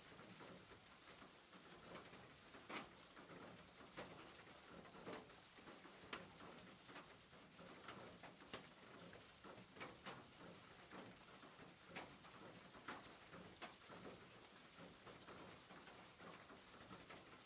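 Rain pattering on a roof: a faint, even hiss of rain with irregular sharper ticks of single drops striking.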